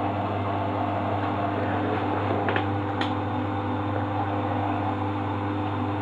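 Beko WMA 5100 front-loading washing machine running, a steady motor hum with a couple of faint clicks a little before the middle.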